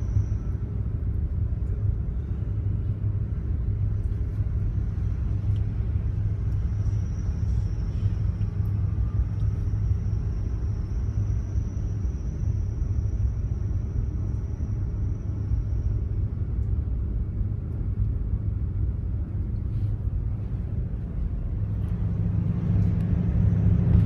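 Steady low rumble of heavy diesel machinery, with a faint high-pitched whine for several seconds in the middle.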